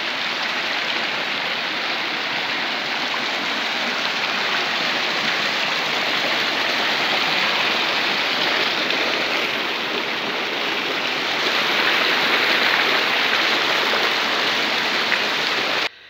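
Fast, shallow stream rushing and splashing over rocks in small rapids, a steady loud rush of water; it cuts off suddenly near the end.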